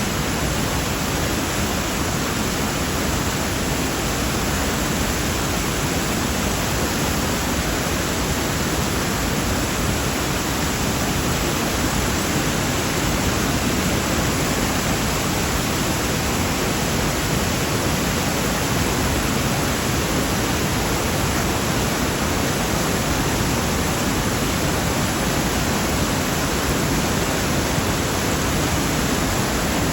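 Floodwater rushing in a swollen river, a steady, unchanging noise.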